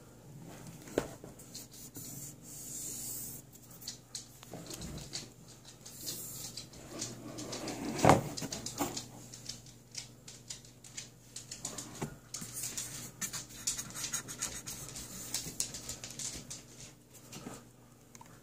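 Handling noise of a cardboard shipping box and the rifle in it: scraping, rubbing and light clicks, with one sharp knock about eight seconds in.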